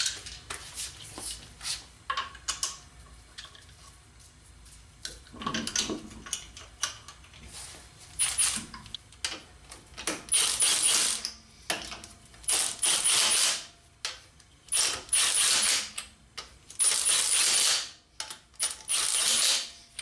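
Lug nuts clinking as they are handled and threaded onto a car wheel by hand. Then a Milwaukee M18 3/8-inch cordless impact wrench runs in about six short bursts of about a second each, snugging the lug nuts down.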